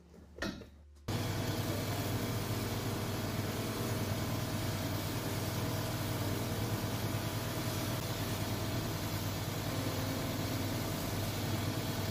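Shoe finishing machine's abrasive wheel spinning, a steady hum with a dense grinding rush, as a leather sole is pressed against it and sanded. The machine sound cuts in abruptly about a second in.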